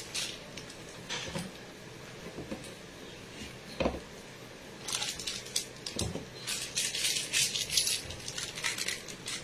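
Handling of cake-decorating tools and a plastic piping bag: a few soft knocks, then a stretch of crinkly rustling in the second half.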